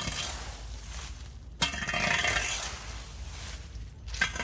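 Rake dragged through dry leaves on concrete pavement: rustling, scraping strokes about every two seconds, each starting with a sharp scrape and dying away.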